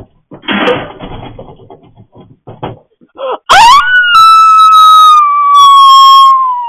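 A dog howling loudly: one long note that swoops up about three and a half seconds in, then holds and slowly sinks in pitch for about three seconds. Before it comes a brief rustle or bump.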